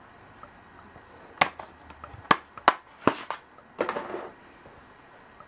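Makeup palettes being handled over an open train case: a handful of sharp clicks and taps, then a short scraping rustle.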